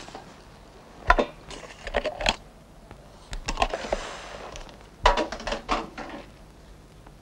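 Hard objects knocking and clattering on a table as they are handled, in separate clusters of sharp knocks, with a stretch of rustling sacking in the middle.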